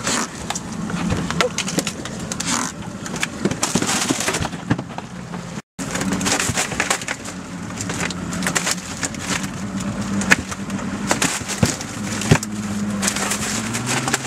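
Irregular knocking, clattering and crunching from a freshly landed dolphinfish and the ice and cans in the boat's fish box, over a steady low hum. The sound cuts out for a moment a little before the middle.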